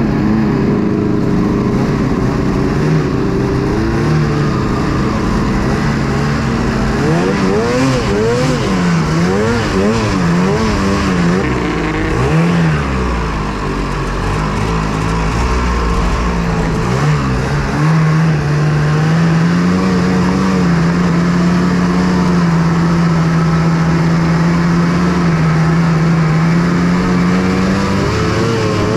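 Snowmobile engine running under way. Its pitch rises and falls in quick swings through the middle, dips briefly, then holds steady from a little past halfway.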